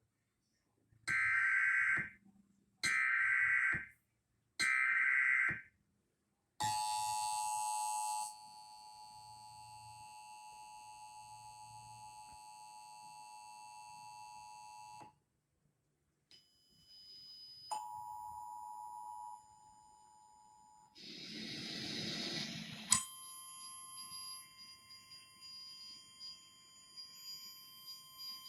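Emergency Alert System alert tones: three short data bursts of the SAME header, about a second each, then the steady two-tone EAS attention signal, which drops in level after a couple of seconds and runs on until about halfway. After a short gap, further steady alert tones follow, broken by a brief burst of static, and a single steady alert tone takes over near the end.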